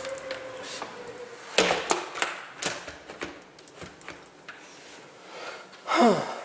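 Several sharp knocks and clicks over about two seconds, starting about a second and a half in, as someone comes in through a door from a porch onto a hard floor. A faint steady tone fades out just before.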